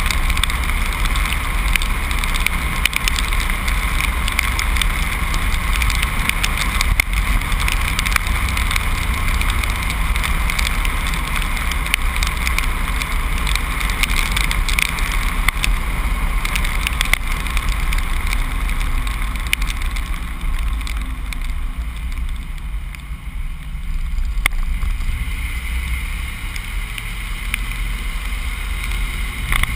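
Truck driving at road speed: steady low rumble of engine and tyres under a rush of wind on the microphone. It eases off for a few seconds past the middle, then picks up again.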